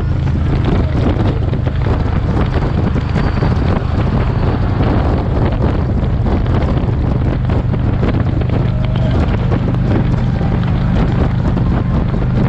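Heavy wind buffeting on the microphone of a motorcycle cruising at freeway speed, over a steady low engine drone.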